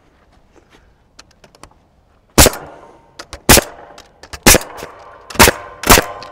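Hammer driving nails into a pressure-treated 2x6 board: a few light taps, then five loud blows about a second apart, each with a short metallic ring.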